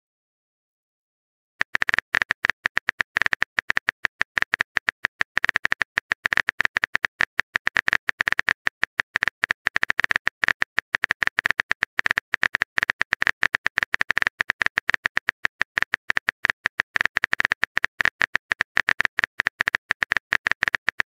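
Simulated phone-keyboard key clicks from a texting-story app, a rapid, steady stream of short clicks as a long message is typed out. They start about a second and a half in.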